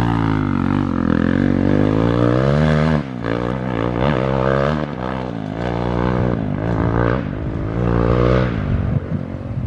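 Kawasaki KX450X dirt bike's single-cylinder four-stroke engine pulling hard up a hillclimb. The revs rise and fall several times as the rider works the throttle, with a drop about three seconds in.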